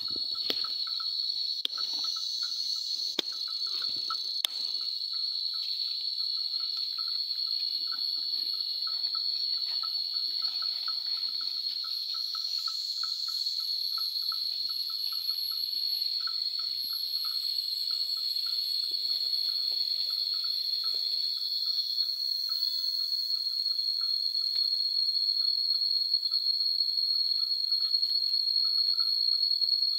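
Insects droning in a steady, high, even whine. Over it an elephant's neck bell clinks over and over, two or three times a second.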